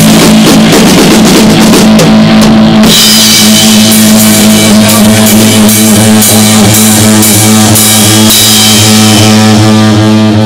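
Electric guitar and Taye drum kit playing a rock improvisation together. For the first three seconds the drums play a busy run of hits, then the guitar holds a sustained chord while the drums keep a steady, even beat.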